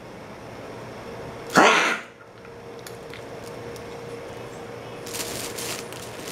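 A pug with kennel cough, on top of brachycephalic syndrome, gives one sharp, explosive cough about a second and a half in, lasting under half a second.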